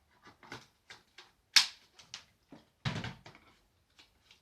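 Hard plastic parts of a Hoover H-Free 700 cordless vacuum cleaner clicking and knocking as they are snapped together. A sharp click comes about one and a half seconds in and a heavier thump about a second later, with lighter taps around them.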